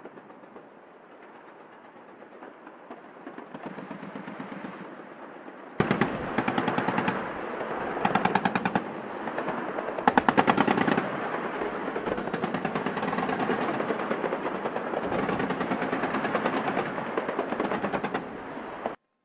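Sustained automatic machine-gun fire in long, rapid bursts. It is fainter for the first few seconds, becomes abruptly much louder about six seconds in, and stops suddenly just before the end.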